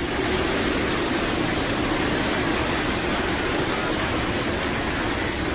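Seawater surge rushing across a beach: a steady, unbroken rush of moving water.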